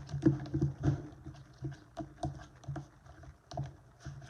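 Big spoon stirring glue and activator into slime in a bowl: irregular knocks and taps against the bowl, busiest in the first second.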